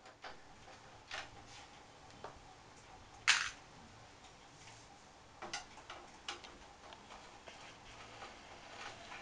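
Scattered clicks and clacks of a screwdriver and the plastic covers of a Canon iR3300 photocopier being handled and worked loose. The loudest is a sharp clack with a brief ring about three seconds in, with several lighter clicks around it.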